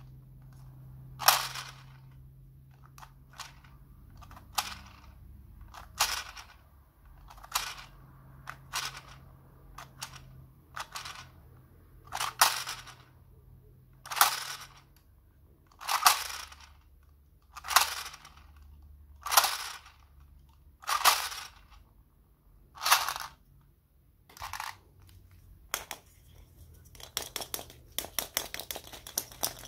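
Small plastic toy slot-machine gumball dispenser being worked over and over. Each pull of its side lever gives a short plastic clatter as the reels spin, about one every one and a half to two seconds. Near the end there is a rapid run of light plastic clicking and rattling.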